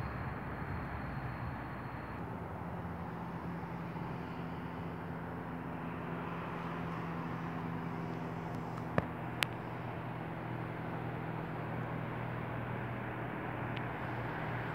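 Low rumble and steady hum of a train still some distance off, growing slightly louder as it approaches. Two sharp clicks about nine seconds in.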